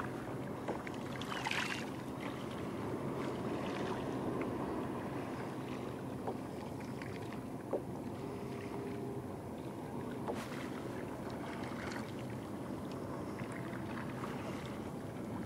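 Sea water lapping and splashing around a kayak, with wind on the microphone and scattered small splashes of sardines breaking the surface; one louder splash comes about a second and a half in.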